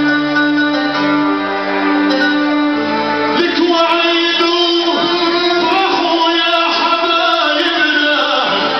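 Male vocalist singing an Arabic mawal (ataaba) through a PA system, with long held, ornamented notes, accompanied by violin over sustained low accompaniment notes that shift a few times.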